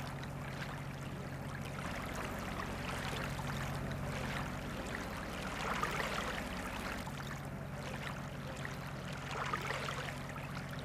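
Small lake waves washing and lapping against a sandy shore, swelling now and then, over a steady low hum.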